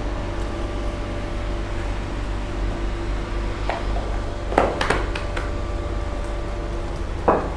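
Bakery room tone: a steady fan-like mechanical hum, broken by a few short knocks or clatters, the loudest about halfway through and just before the end.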